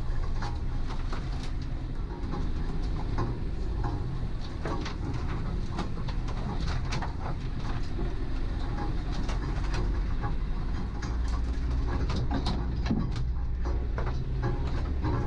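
Land Rover Defender engine running with a steady low drone at crawling speed on a rough track, heard from inside the cab, with frequent knocks and rattles from the vehicle and branches brushing against it.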